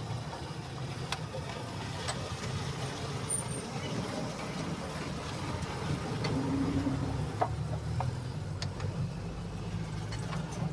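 A motor vehicle engine running steadily with a low rumble, swelling a little past the middle, with a few short sharp clicks scattered over it.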